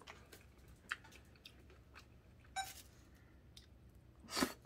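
Quiet eating sounds: faint scattered clicks and chewing as boiled cockles are picked up with wooden chopsticks and eaten, with one louder wet mouth sound near the end as a cockle goes into the mouth.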